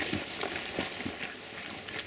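Footsteps: a run of soft steps, about two a second.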